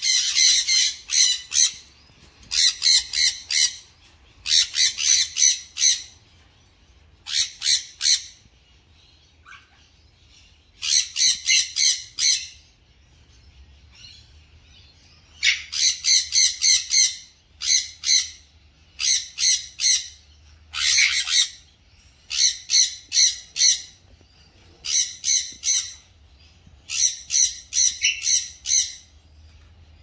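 Sun conures screeching: runs of four to six rapid, shrill, high-pitched calls, a run every couple of seconds, with pauses of a few seconds a little before and a little after the middle.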